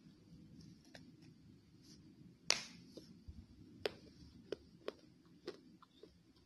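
Sharp crunches of fired clay pot pieces being bitten and chewed: one loud crack about two and a half seconds in, then several smaller crunches.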